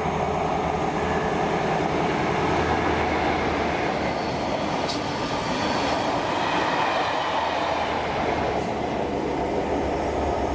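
Class 43 HST diesel power cars running, a steady, loud engine note with rail noise as the test train goes by.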